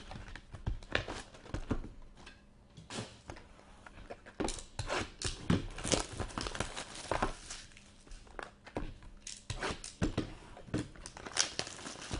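Plastic wrapper of a Bowman Chrome trading-card pack crinkling and being torn open by hand, with irregular crackles throughout.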